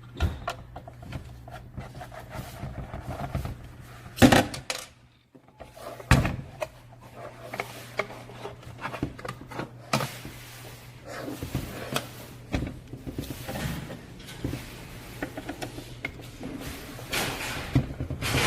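Knocks, clicks and clatter from a vortex mixer being handled and taken apart, over a steady low hum that drops out briefly about 5 seconds in. The loudest knocks come about 4 and 6 seconds in.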